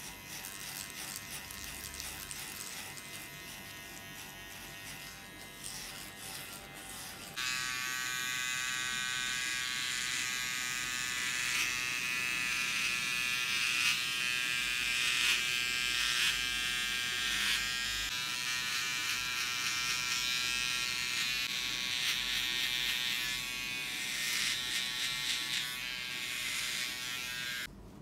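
Cordless hair clipper with a No. 1.5 guard buzzing steadily as it cuts hair. About seven seconds in, a louder, higher buzz from a T-blade trimmer doing the line-up takes over, and it stops just before the end.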